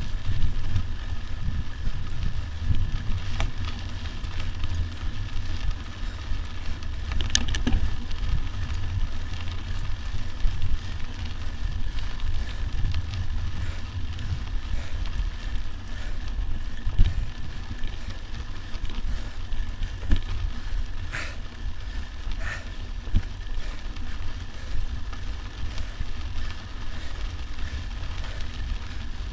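Mountain bike rolling along a dirt and gravel track: tyres crackling over the loose surface over a steady low rumble on the microphone. A few sharp clicks and knocks from the bike, the loudest about seven seconds in.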